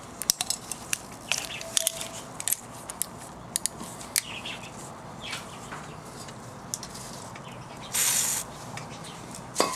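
Scattered sharp metal clicks and ticks of a thread tap being turned by hand with locking pliers, cutting and chasing threads in an air injection port of a Toyota 2ZZ-GE aluminium cylinder head. About eight seconds in comes a half-second hiss of aerosol spray lubricant.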